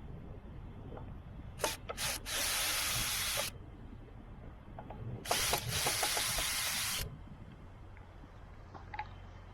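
Cordless power drill driving or backing out sign screws in two runs of about two seconds each, with small clicks of handling between them.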